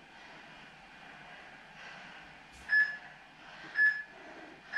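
Three short, identical electronic beeps about a second apart, starting a little past halfway: an interval timer's countdown marking the last seconds of a 40-second exercise interval.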